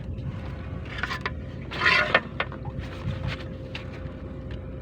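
Small boat's engine running steadily, with a brief loud rush of noise about two seconds in and a few light knocks.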